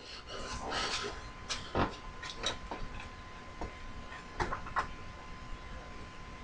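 Rummaging through loose metal hardware: scattered clinks and knocks as parts are shifted about, a few louder ones about two seconds in and again around four and a half seconds.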